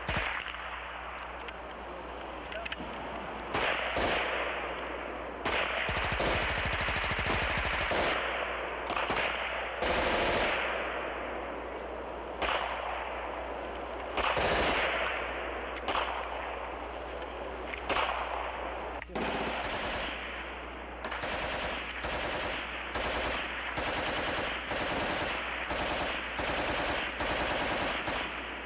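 Automatic gunfire: short bursts and single shots from machine guns, with strings of rapid shots repeating about once a second near the end.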